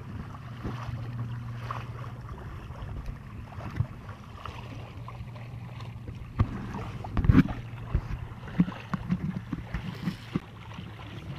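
Electric trolling motor on a kayak running with a steady low hum, over the rush of water and wind. From about six seconds in, a run of knocks and thumps, the loudest a little past seven seconds, as the camera is handled and turned.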